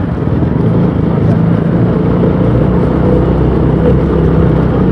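KTM 200 Duke's single-cylinder four-stroke engine running steadily through its exhaust, with no sharp revving.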